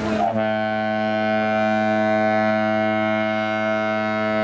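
A large ferry's ship horn sounding one long, steady blast, several tones together. A moment in, its higher notes slide down and settle.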